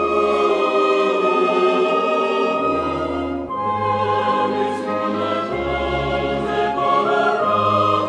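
Background music: slow choral singing in long held chords over low bass notes that change every second or two.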